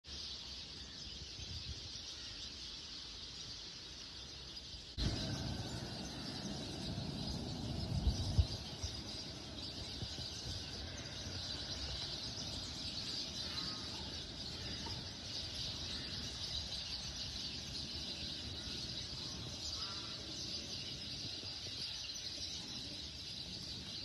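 A morning chorus of many small birds chirping continuously, over a low city rumble that grows louder about five seconds in. A couple of brief, loud low thumps come near eight seconds.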